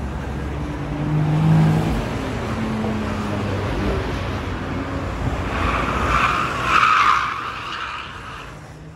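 Cars accelerating hard while cornering: an engine revs up, loudest about a second and a half in, then tyres squeal for about two seconds past the middle.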